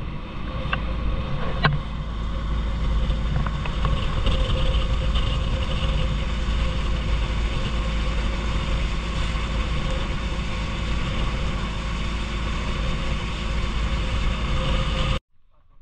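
Island-hopping boat's engine running steadily under way, with a constant low rumble and a few sharp clicks in the first two seconds.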